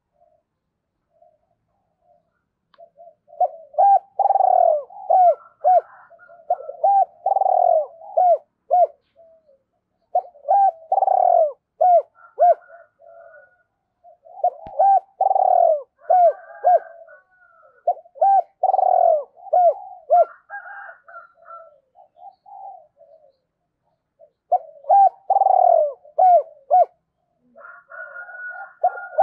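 Caged decoy spotted dove cooing: repeated phrases of several hooting notes with short pauses between them, a quieter stretch a little past the middle, then loud phrases again near the end. This is the territorial coo used to stir up and lure wild doves.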